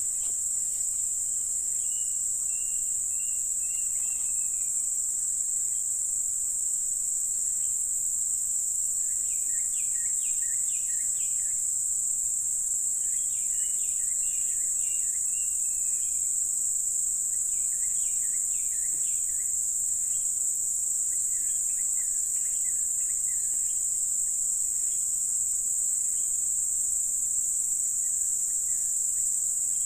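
Insect chorus: a steady, high-pitched drone that does not let up. Faint chirping calls come in short clusters every few seconds from about a third of the way in.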